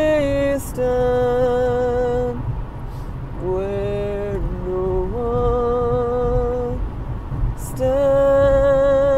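A man singing a gospel hymn unaccompanied, holding a string of long, steady notes with short breaths between them. A steady low rumble of car noise runs underneath.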